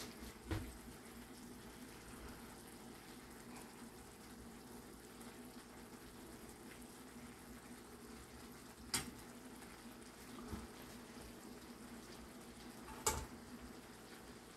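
Shrimp and asparagus frying in a pan with a faint, steady sizzle, broken by a few short knocks.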